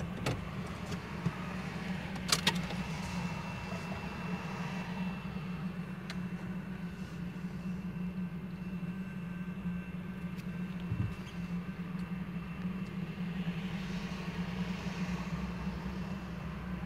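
A car engine running steadily, heard from inside the cabin as a low hum. There is one sharp click about two seconds in.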